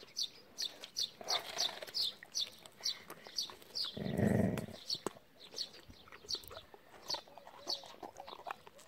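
Basset hound chewing a slice of watermelon, with scattered small crunches and one louder, low sound from the dog about four seconds in. A bird chirps steadily in the background, about three chirps a second.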